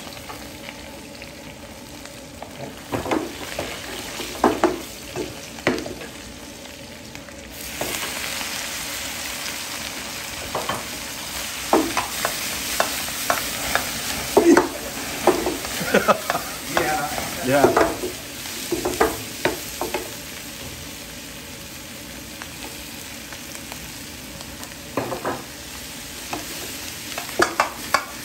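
Pork belly frying in a wok while a metal spatula stirs it, scraping and clanking against the pan now and then; the sizzle gets louder about seven seconds in.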